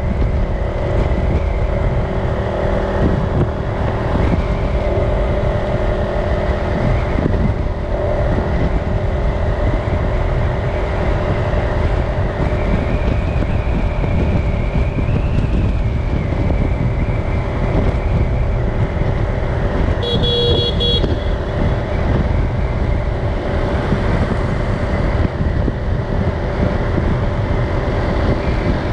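City street traffic with motor vehicle engines running, and a vehicle horn sounding once briefly about two-thirds of the way through.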